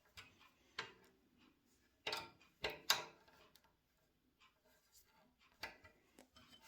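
A few scattered light clicks and knocks, loudest near the middle, from hands and tools working the blade guide blocks of a Shopsmith bandsaw.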